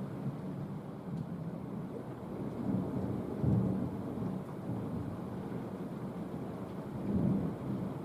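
Rolling thunder rumbling low and continuously, swelling louder about three and a half seconds in and again about seven seconds in, over the steady hiss of rain.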